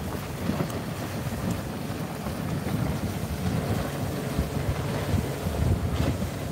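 Wind blowing across the microphone: an uneven low rumble with a hiss above it.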